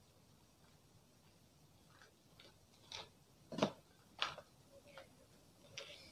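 Cardboard smartphone box being opened and handled: a few light clicks and scrapes of the lid and inner card pieces. The sharpest comes about three and a half seconds in, after a quiet first two seconds.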